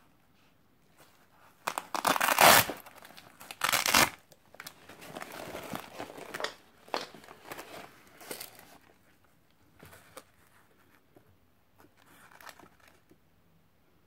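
Hook-and-loop (Velcro) fastener ripping apart twice, loudly, as a Cordura nylon velcro pouch is peeled off the loop panel of a chest rig. Quieter rustling of the nylon gear being handled follows.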